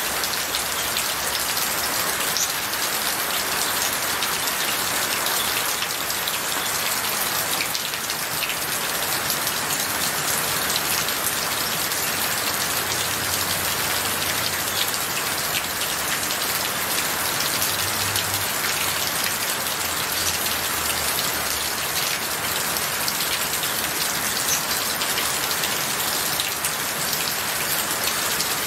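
Steady rain on a tin roof and gutter, with many individual drops tapping sharply over an even hiss.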